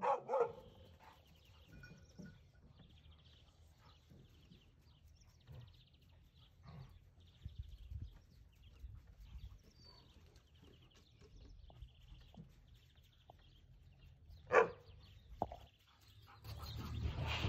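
Puppies at play, giving a few short yips, the loudest and sharpest one a little before the end. Faint birdsong trills repeat in the background.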